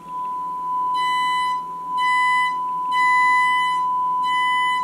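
Sine-wave test tone played through a speaker by a Marantz 2215B's power amplifier, with a nasty buzz of distortion cutting in and out about once a second over the steady tone. The distortion comes from the power amplifier section, where the 2SC1384 transistors were replaced with KSC2690s, which are not a good substitute.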